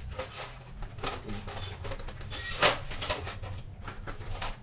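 Stainless steel dish-rack panels being handled and set down on cardboard packing: a string of light knocks and scrapes, the sharpest about two and a half seconds in.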